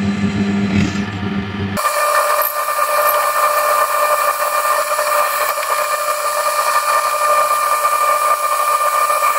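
Drill press running a twist bit through steel angle iron, the motor and cutting making a steady whine. About two seconds in the sound changes abruptly from a lower hum to a higher-pitched whine.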